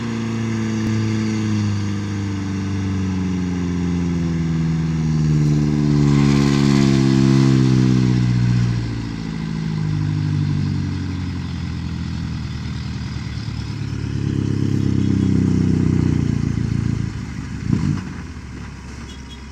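Heavy diesel engines of a loaded lorry and a backhoe pushing it up a hill, labouring under load. The engine note sinks slowly over the first several seconds as it lugs down, picks up and holds, and there is a short knock near the end.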